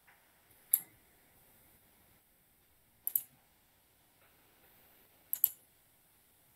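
Computer mouse clicking: a few sharp single clicks a couple of seconds apart, then a quick double click a little past five seconds.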